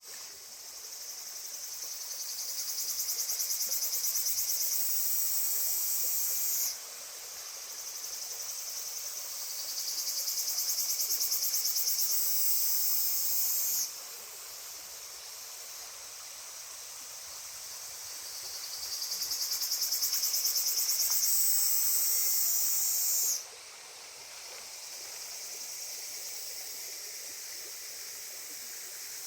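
Cicadas singing: a high, rapidly pulsing buzz that swells over several seconds and then cuts off abruptly, three times, over a steady background chorus of more insects.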